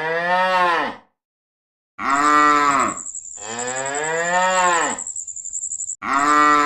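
Domestic cow mooing several times in a row: long calls that rise and then fall in pitch, with short pauses between them. A thin, steady, high whine runs behind the later moos.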